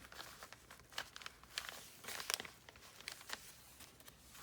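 Paper rustling and crinkling, with scattered light taps and clicks, as journal pages and a magazine-page envelope are handled.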